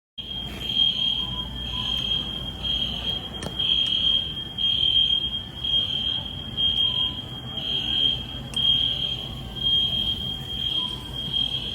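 Store fire alarm beeping: a high-pitched electronic tone pulsing in a steady repeating pattern over low background rumble, signalling an evacuation.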